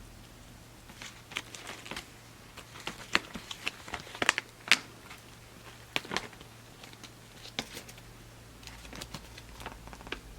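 A baby squirrel monkey rummaging in freeze-dried fruit snacks and their packaging: irregular crisp crinkles and crackles, loudest about four to five seconds in, over a faint steady low hum.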